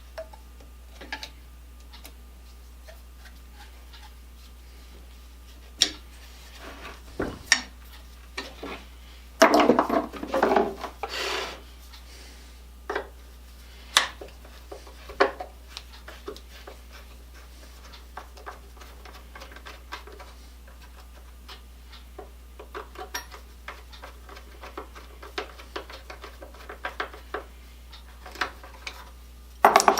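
Tools and small metal parts being handled on a workbench: scattered clicks, taps and clanks, with a louder clatter of several knocks about ten seconds in.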